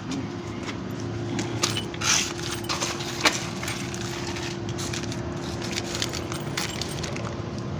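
Scattered metallic clicks and jingles, like tools and metal parts being handled, over a steady hum; one click a little over three seconds in is the loudest.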